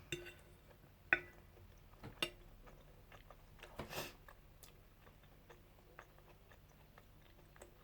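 Faint close-up chewing and mouth sounds of a person eating, with a few small sharp clicks in the first couple of seconds and a short hissy burst about four seconds in.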